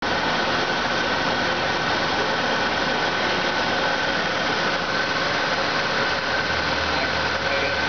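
GM 3800 Series II 3.8-litre V6 running steadily at idle, with a steady high whine over the engine noise.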